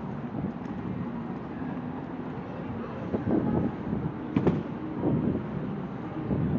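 Wind buffeting the microphone over a low rumble of road traffic, with a brief click about four and a half seconds in.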